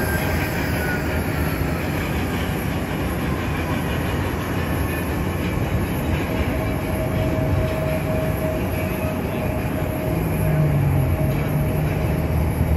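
Jet airliners' engines running at taxi idle: a steady rumble and hiss with whining tones, one of which slides down in pitch near the start.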